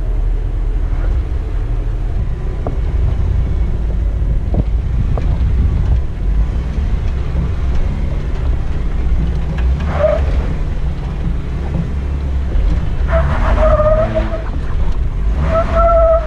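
Rented Jeep's engine and drivetrain running with a steady low rumble as it drives on the slickrock trail. Near the end come a few short, high-pitched sounds.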